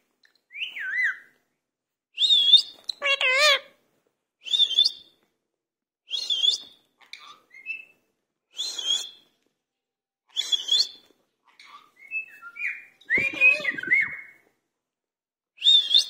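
Indian ringneck parakeet giving short, high, wavering whistled calls about every two seconds, with a few lower, warbling calls mixed in.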